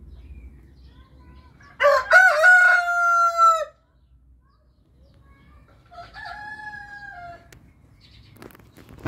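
A rooster crows loudly about two seconds in, a long call that holds its pitch, and a fainter, shorter crow follows about six seconds in. A sharp click comes right at the end.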